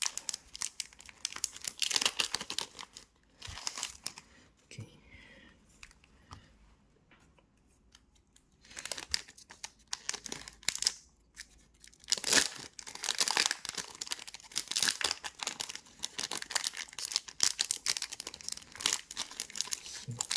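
Basketball trading card packs being torn open by hand, the wrappers tearing and crinkling in bursts, with a quieter lull of several seconds before the middle.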